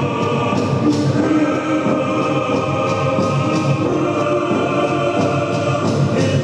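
Music with a choir singing, continuous and steady in level.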